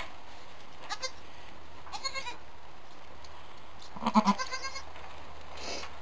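Goats bleating in short calls: one a little under a second in, another about two seconds in, then a louder string of calls about four seconds in and a fainter call near the end.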